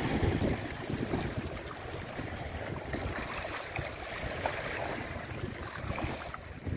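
Wind buffeting the microphone in gusts over the wash of the sea against the shore.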